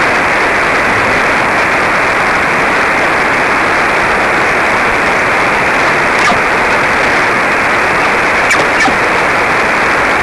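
Shortwave receiver static from a Hermes SDR tuned across the 20-metre amateur band: a steady, loud rush of noise with its highs cut off sharply by the receive filter, and a few faint ticks in the second half.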